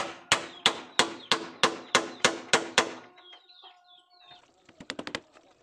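A hammer nailing two wooden planks together, about three strikes a second for nearly three seconds. A short clucking bird call follows, then a quick run of light clicks near the end.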